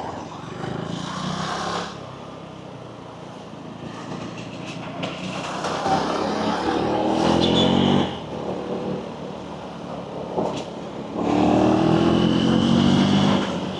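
Motorcycle engine accelerating twice, its pitch rising each time, about six seconds in and again about eleven seconds in. Between the two pulls the engine and traffic noise stay steady and lower.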